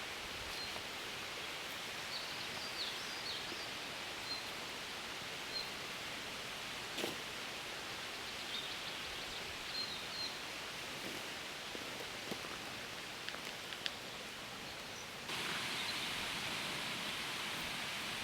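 Steady outdoor background hiss with faint, short bird chirps and a few light clicks scattered through it. The hiss steps up abruptly near the end.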